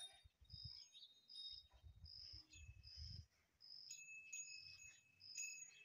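Cricket chirping faintly at an even pace, about one short high chirp every 0.8 seconds. Low rumbling on the microphone comes and goes in the first three seconds, and a thin steady high tone joins about four seconds in.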